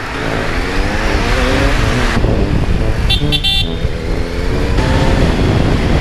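Motorcycle engine revving up under acceleration, its pitch rising over the first couple of seconds, with wind rushing on the helmet microphone. A vehicle horn sounds once, briefly, about three seconds in.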